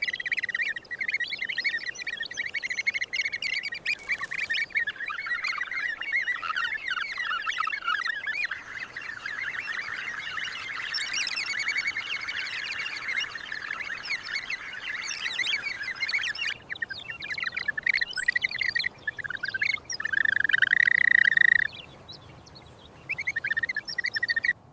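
A dense chatter of many birds calling, with short high calls crowding over one another. The calls thin out later on, then one louder held call comes near the end.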